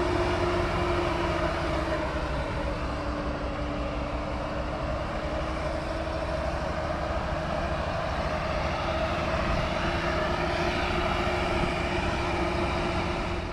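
A diesel engine running away on its own burning oil, held at high revs with a steady, constant whine over loud engine noise, out of control until the oil burns out or its air supply is cut off.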